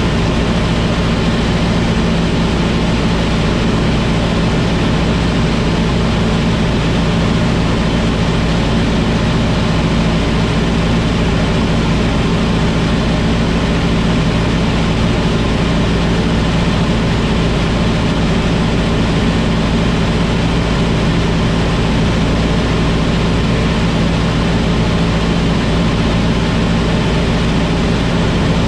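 Light single-engine propeller aircraft in cruise, heard from inside the cockpit: the engine and propeller drone steadily at a constant pitch over a steady rush of air.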